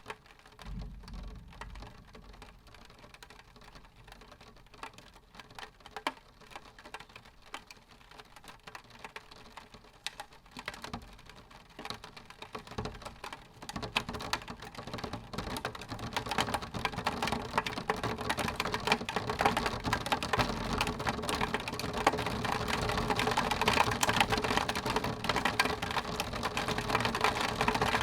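Rain drops tapping on window glass, a dense patter of tiny ticks that grows heavier and louder from about halfway through.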